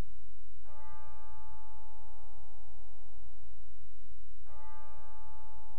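A ceremonial chime struck twice, under a second in and again about four seconds later, each stroke ringing on with several clear bell-like pitches and fading slowly. These are the later strokes of the three-fold 'chiming of the Trinity' that marks a call to worship.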